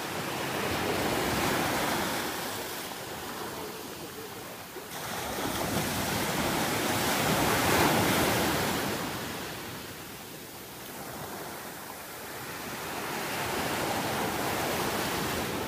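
Small surf waves breaking and washing up the sand at the water's edge, swelling and falling back three times, the loudest wave about halfway through.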